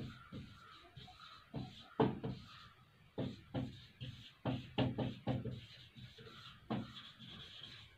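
Whiteboard marker writing on a whiteboard: a run of faint, irregular taps and short scratchy strokes as words are written letter by letter.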